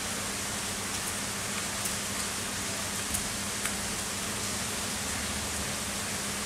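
Heavy summer rain falling steadily, a dense even hiss with a few sharper drop ticks about three seconds in, under a faint steady low hum.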